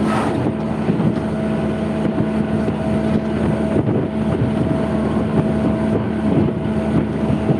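A steady engine drone with wind noise on the microphone.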